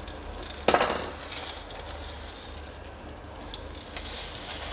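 Fried cashews, peanuts, arbi (taro root) slices and grated coconut tipped off a steel plate into a pan of boiling mawa and sugar syrup: a sharp clatter of the plate and falling pieces about a second in, then softer rustling and small clicks as the rest slides in over the bubbling mixture.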